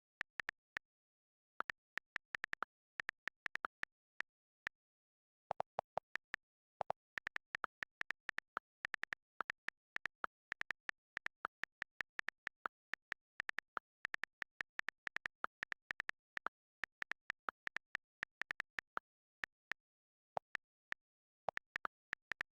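Keystroke clicks from fast typing: rapid, irregular key presses several a second, broken by brief pauses of about a second, with dead silence between the clicks.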